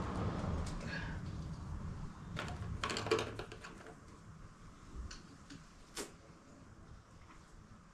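Scattered clicks and knocks from hand tools and parts being handled during car disassembly. A cluster comes about three seconds in and single ones near five and six seconds, over a low rumble that fades out over the first half.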